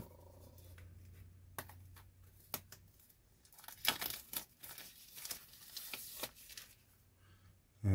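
Clear plastic shrink wrap crinkling and tearing as it is peeled off a small cardboard box, in short irregular crackles and clicks, busiest about four to six seconds in.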